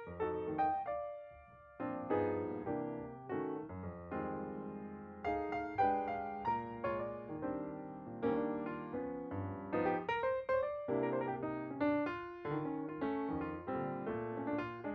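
Background music: solo piano playing a flowing melody over chords, with notes struck and decaying in a steady rhythm.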